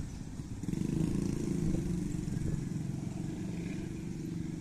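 Small motorcycle engine running as a scooter crosses close by, loudest about a second in and then slowly fading.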